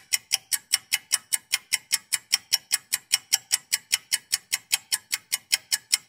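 Clock-ticking sound effect for a countdown timer: steady, evenly spaced ticks, about four a second.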